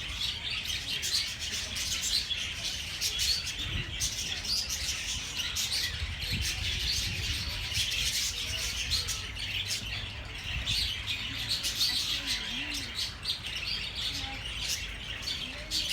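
Many birds chirping at once: a dense, continuous chatter of short high chirps, over a steady low rumble.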